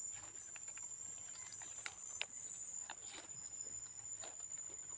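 Dry leaf litter crackling and rustling in short, scattered clicks as a gloved hand picks wild mushrooms from the forest floor, over a steady high-pitched insect trill.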